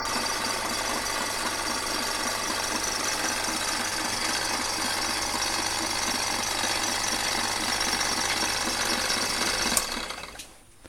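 Homemade scrap-built milling machine running steadily with a fast rhythmic mechanical clatter. Near the end there is a click and the machine winds down and stops.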